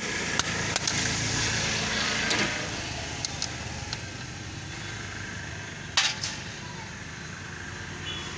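Metal clicks and clanks from pliers working the spring clips on a tractor's air-cleaner housing, with one loud metallic clank about six seconds in, over a steady background hum.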